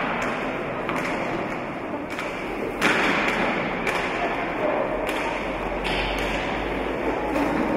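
Roller hockey play in a large sports hall: a steady echoing din with sharp knocks of sticks and ball about once a second, the loudest about three seconds in.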